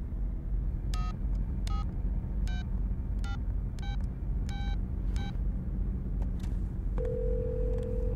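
Seven touch-tone (DTMF) keypad beeps as a phone number is dialled on a mobile phone, each a short two-note beep, roughly one every 0.7 s. Near the end a steady tone comes on the line as the call goes through. A steady low rumble runs underneath.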